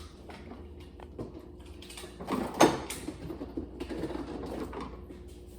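Small handling sounds, scattered clicks and rustles, with one sharper click about two and a half seconds in.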